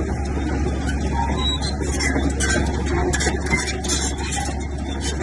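Heavy diesel earthmoving machinery running steadily: a constant low engine drone with irregular metallic clattering over it.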